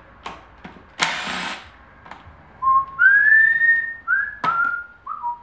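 A person whistling a short tune, several clear notes that slide up and down, in the second half. About a second in, a cordless electric impact wrench runs for half a second on a transmission case bolt, and a sharp click falls near the end.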